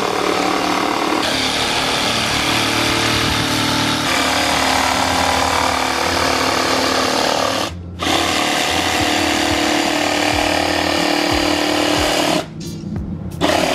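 DeWalt cordless power saw running steadily as it cuts along a taped line through a car's rear bumper. It stops briefly about eight seconds in, starts again, and stops about a second before the end.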